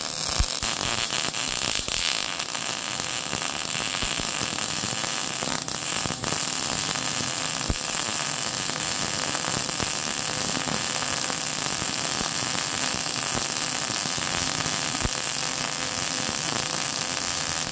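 Wire-feed welding arc burning one long continuous bead: a steady crackling hiss with scattered small pops.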